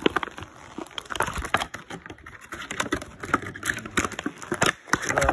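Irregular light clicks and taps of plastic toy parts and packaging being handled, mixed with rustle from the phone being moved about.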